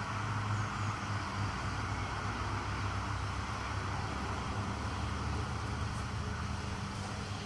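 Gasoline lawn mower engine running steadily while cutting grass.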